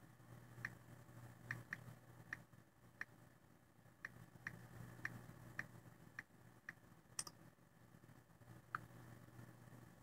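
Near silence: a low steady hum with about a dozen faint, light clicks at irregular intervals, one sharper click about seven seconds in.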